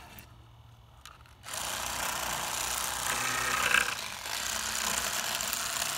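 Electric fillet knife switching on about a second and a half in and running with a steady buzz as it cuts the second fillet from a yellow perch.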